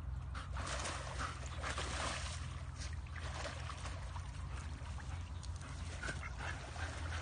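A dog whimpering and yipping in short calls while it splashes through shallow water.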